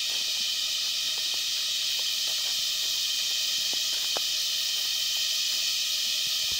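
Steady high-pitched hiss of a tropical forest insect chorus, even throughout, with a few faint light ticks from gear being handled.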